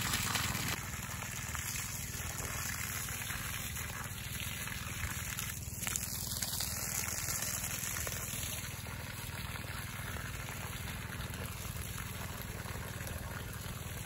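Water from a garden hose gushing and splashing onto wet soil around the base of young grapevines. It is a steady rush, a little louder for about the first second, then even.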